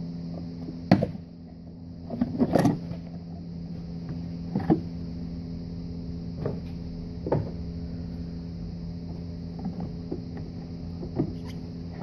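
A steady low hum under scattered knocks and clatters from hands moving rubber hoses in a car's engine bay. The loudest knocks come about a second in and in a short cluster around two and a half seconds in.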